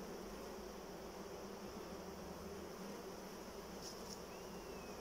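Honeybees buzzing steadily over an open hive that is packed with bees.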